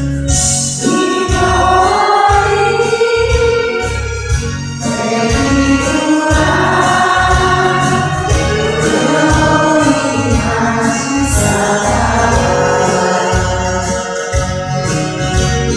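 A group of women singing a song together in unison over a backing track with a steady beat of about two pulses a second.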